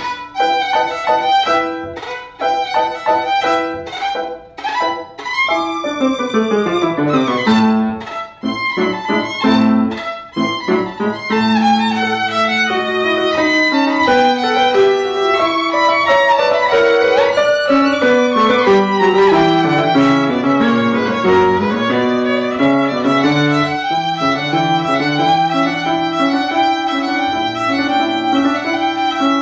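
Solo violin playing fast passagework. It opens with short, separated strokes and quick runs sweeping down and back up, then settles after about eleven seconds into an unbroken stream of rapid notes.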